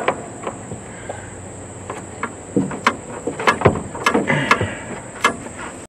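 Scattered sharp clicks and light knocks of metal latch rods and plastic clips being handled and snapped into place inside a ProStar truck's driver door, most of them in the second half. A steady high insect drone runs underneath.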